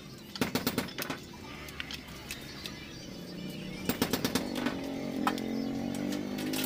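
Wiring harness and its plastic connectors rattling and clicking as they are handled, in two quick bursts of clicks, about half a second in and again about four seconds in. A low steady drone comes in from about three seconds in.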